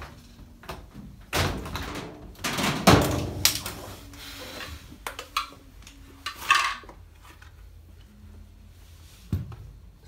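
Thumps and knocks from a top-load washing machine's cabinet being handled and shifted, loudest about three seconds in, with another knock a little past six seconds and a softer one near the end.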